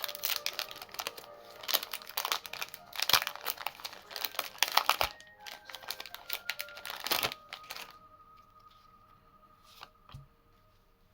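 Foil booster-pack wrapper being crinkled and torn open: dense, crackly rustling for about eight seconds, then it goes quiet.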